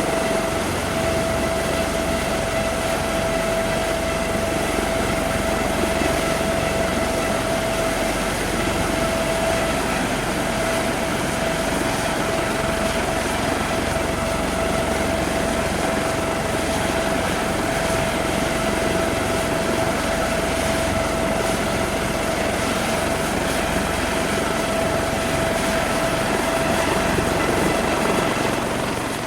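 Helicopter running steadily: a constant whine over a dense rushing engine and rotor noise.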